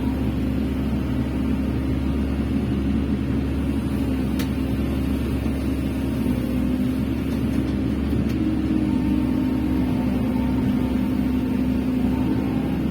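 Excavator's diesel engine running steadily while it digs soil, its tone shifting slightly about eight seconds in.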